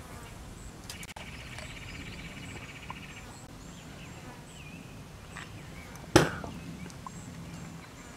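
Quiet outdoor ambience by the water, with a short, rapid trill about a second in and faint high chirps scattered through. A single sharp knock comes about six seconds in.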